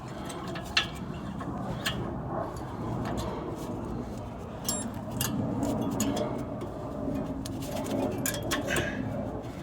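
Scattered sharp metallic clicks and light scraping as a new rear brake pad is worked into the caliper bracket's groove and clips, over a low background murmur.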